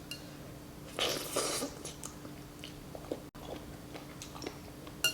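Mukbang eating sounds close to the microphone: chewing a mouthful of wonton noodle soup, with a brief noisy slurp about a second in and small wet mouth clicks. A spoon clinks against the bowl at the very end.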